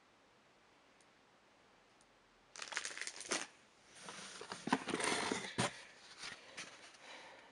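Packaging and cardboard being handled: rustling, scraping and a few sharp clicks, starting about two and a half seconds in, loudest in the middle and tailing off near the end.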